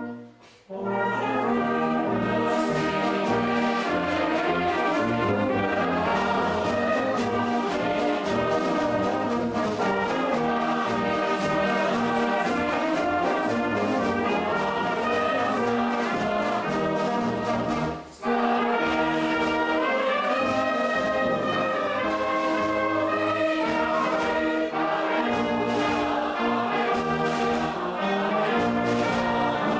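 Brass band with flutes playing: trumpets, horns, tubas and flutes together in a march-like piece. It stops briefly just after the start and again a little past halfway, then carries on.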